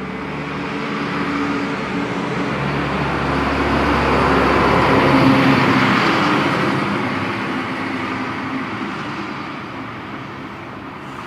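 A motor vehicle driving past, its engine and tyre noise swelling to a peak about five seconds in and then slowly fading away.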